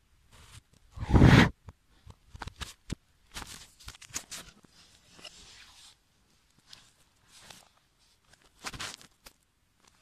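Irregular rustling and soft whooshing with scattered sharp clicks, loudest about a second in and again near the end: flour being shifted and handled around a toy train, played backwards.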